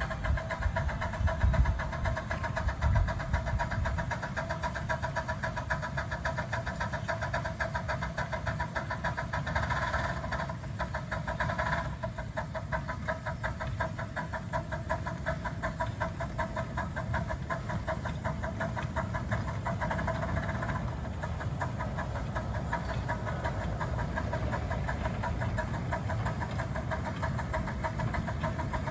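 Miniature steam train running past, with a steady fast mechanical pulsing throughout and a few louder low thumps about one to three seconds in.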